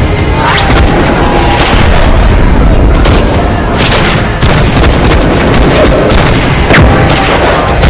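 Movie-style gunfight sound effects: repeated gunshots and heavy booms at irregular intervals, layered over a dense music track.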